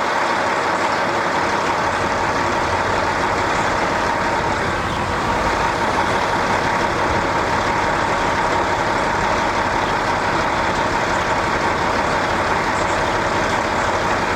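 Steady mechanical running noise with a constant faint hum, unchanging throughout.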